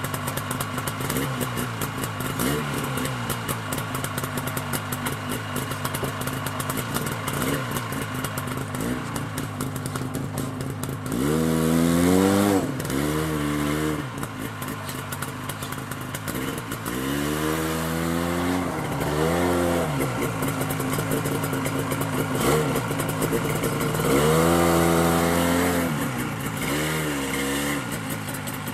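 Snowmobile engine idling, revved up and back down three times: about eleven, seventeen and twenty-four seconds in.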